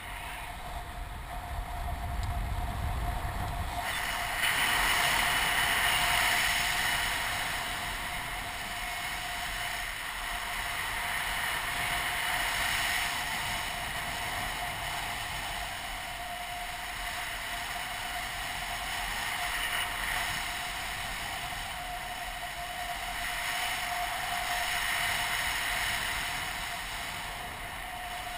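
Wind rushing over the camera in flight under a paraglider wing, swelling and easing every few seconds, with a faint steady whine. There is a low rumble in the first few seconds.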